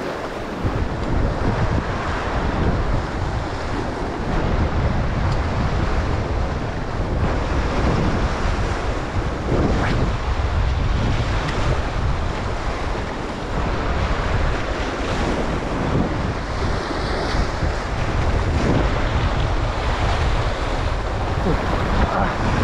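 Wind buffeting the microphone over waves washing on the shore. A steady, loud rumble with no breaks.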